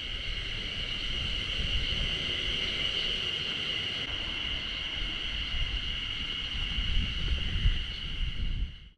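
Chorus of spring cicadas (haruzemi) singing: a steady, high-pitched drone that cuts off suddenly near the end.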